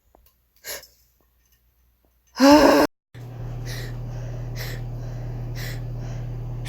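A person sneezes loudly once, about two and a half seconds in, after a faint breath. After a cut, a steady low hum runs under breathy gasping inhalations about once a second as another sneeze builds.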